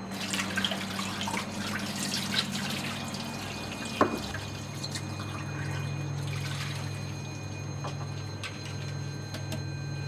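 Water dripping and trickling, with scattered crackling clicks over a steady low hum; a single sharp click about four seconds in.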